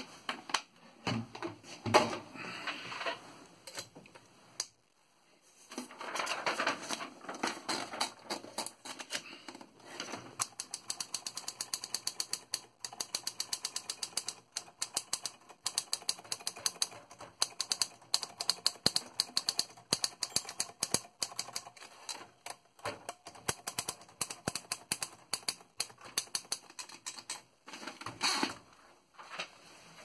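1950 Olympia SM-1 portable typewriter: a few knocks as its wooden case is handled at first, then, from about ten seconds in, a long run of quick, even clicks as the keys are typed and the typebars strike the platen.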